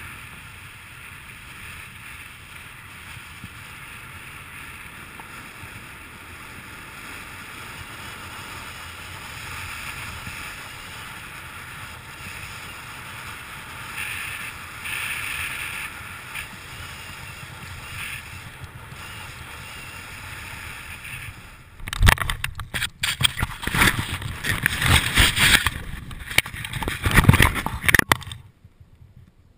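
Wind rushing over a jumper-worn camera's microphone under an open parachute canopy, steady and fairly quiet. About three-quarters of the way through it turns loud and irregular, with buffeting, rustling and knocks through the landing, then drops off briefly near the end.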